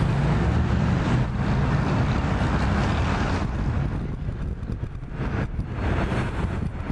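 Boeing 747-400 on final approach, its jet engines making a loud, steady low rumble with a broad rushing noise above it.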